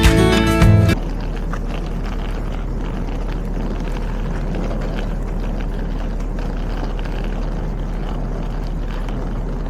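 Guitar music cuts off about a second in, giving way to the steady rumble and low hum of a passenger train running.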